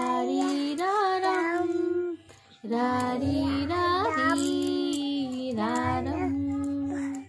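Two-year-old child singing a Hindi lullaby in long held notes, with a short break a little over two seconds in.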